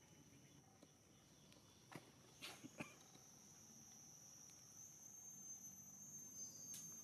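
Near silence, with a faint, steady high-pitched drone of insects such as crickets. Near the middle comes a short cluster of soft clicks.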